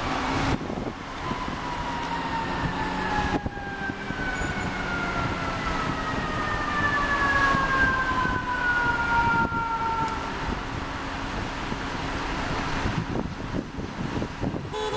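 Fire truck siren winding down, its wail falling slowly in pitch over about ten seconds, over the hum of idling traffic. A truck's air horn starts right at the end.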